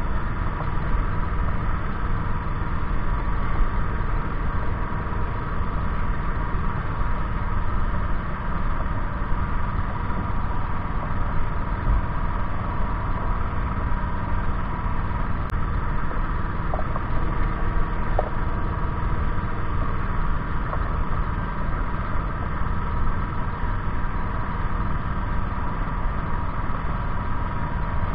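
An engine running steadily with an unchanging drone.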